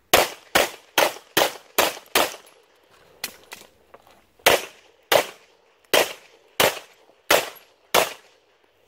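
Semi-automatic pistol firing two strings: first six quick shots about 0.4 s apart, then a pause of about two seconds with two quieter knocks, then six slower, evenly spaced shots about 0.7 s apart, each shot followed by a short echo.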